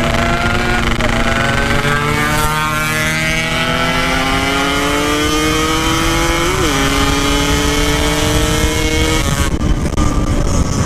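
Yamaha RX-King 135cc single-cylinder two-stroke motorcycle engine accelerating under full throttle, its pitch climbing steadily. About six and a half seconds in, a quick dip marks an upshift, then it climbs again until the note falls away about nine and a half seconds in.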